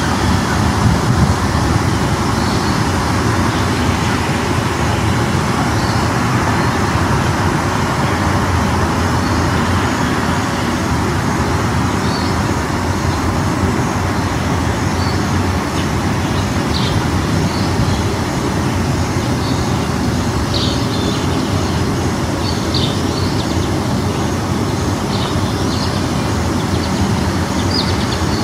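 Continuous road traffic noise, steady throughout. Short, high bird chirps come in over it from about halfway through.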